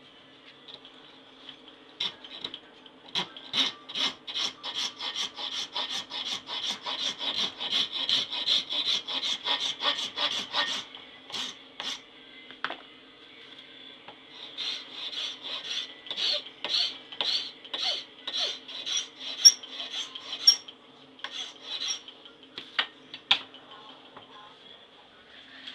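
Hand file being pushed in rhythmic strokes, about three a second, across a wooden knife handle clamped in a bench vise. There are two runs of strokes with a short pause between them, over a faint steady hum.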